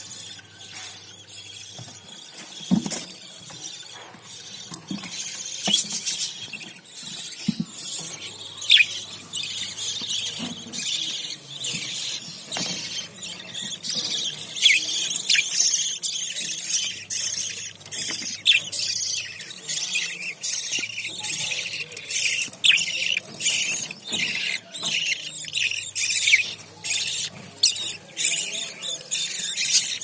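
Budgerigar chicks in a clay-pot nest squealing with many short high-pitched calls, sparse at first and much busier from about halfway on. A few low knocks from the pot being handled come in the first several seconds.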